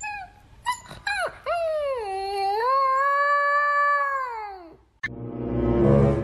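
Fluffy husky-type puppy yipping a few times, then howling: one long howl that dips in pitch, holds steady and falls away near the end. A different, rougher sound then rises and swells to the loudest point.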